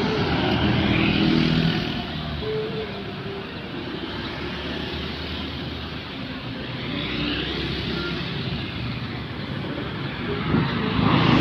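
Roadside traffic: motor scooters, cars and a small pickup truck driving past close by, their engines and tyres swelling and fading one after another. A louder engine comes up fast near the end.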